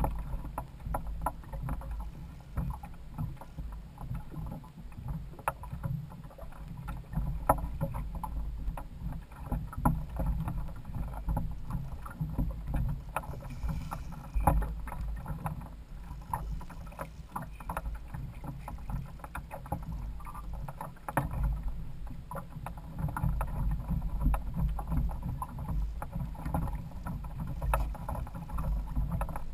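Choppy water slapping against the hull of a Hobie Adventure Island trimaran kayak: a constant low rumble with frequent small, irregular knocks.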